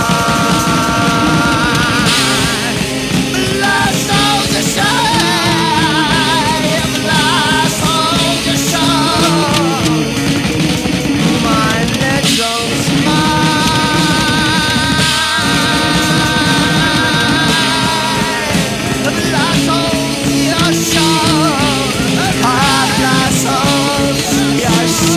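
Rock music: long held notes that waver in pitch ring out over a steady, full band accompaniment.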